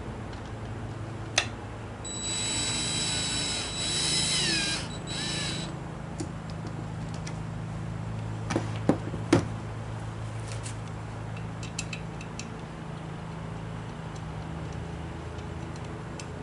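A small electric power tool whirs in three short bursts, a few seconds long in all, with a steady high whine that dips in pitch as it loads. A few sharp clicks of metal parts follow, over a steady low hum.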